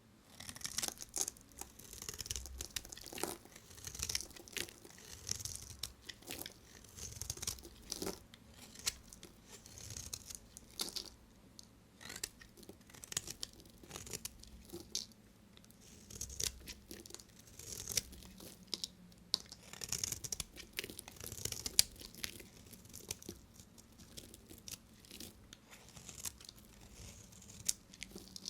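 A blade cutting through dry bar soap: repeated crisp crunching, scraping strokes, roughly one a second, with small crackles between them.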